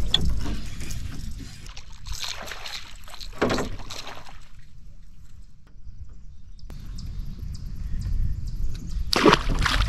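Water splashing and sloshing as a hooked bass thrashes at the surface beside a small aluminium jon boat, in short bursts over a steady low rumble.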